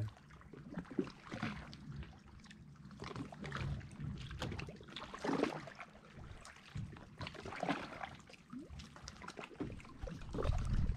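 Small waves lapping against a rocky lake shoreline: soft, irregular splashes and trickles.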